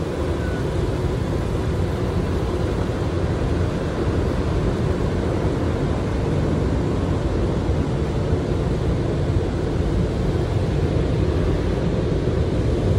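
Touchless car wash machinery running, heard from inside the car's cabin: a steady, deep rushing noise with no breaks.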